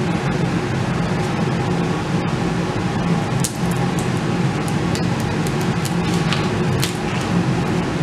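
Vinyl decal on clear transfer tape crackling as it is peeled off its backing sheet, with several short crackles between about three and a half and seven seconds in. Under it runs a loud, steady machine hum.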